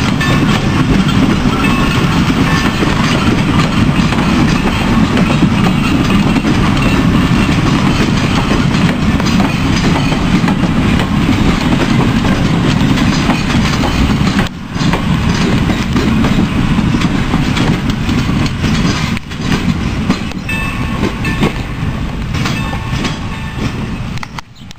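Railway passenger coaches rolling past at close range: a steady heavy rumble of wheels on rails with clickety-clack over the rail joints. The sound fades over the last few seconds as the final coach draws away.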